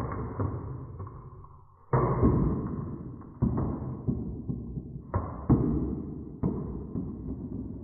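Marbles rolling down a wooden HABA marble run: a sharp clack about every one to two seconds as a marble drops onto the next section, each followed by a fading rolling rumble.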